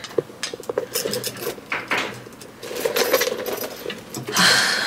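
Handbags being handled on a hanger: a run of small quick clinks and rattles, with a louder rustle about four and a half seconds in.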